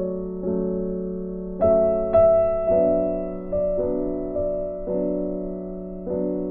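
Background music: a slow, gentle piano melody, with notes struck about once a second and left to fade.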